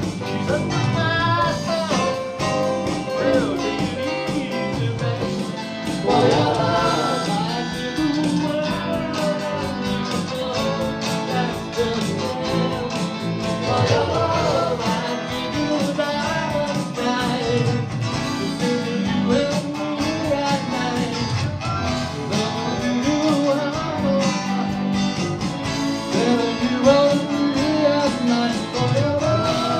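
A rock band playing live: a man singing lead over electric guitars and drums.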